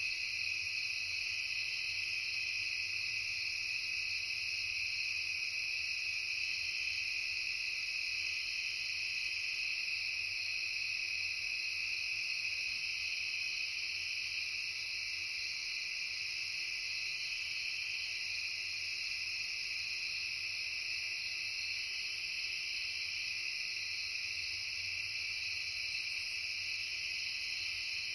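Steady, unbroken chorus of crickets and other insects, several pitches layered together.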